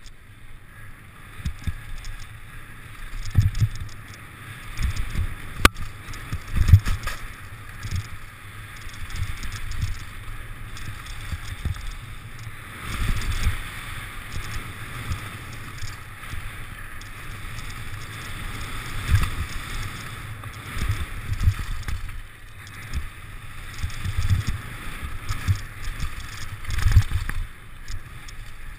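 Mountain bike descending a dirt and gravel trail at speed: tyres rumbling and crunching over the ground, with irregular low thumps as the bike hits bumps and a sharp click about six seconds in.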